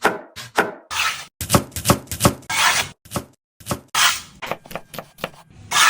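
Food being chopped with a knife on a cutting board: irregular sharp strikes, with longer rasping strokes between them.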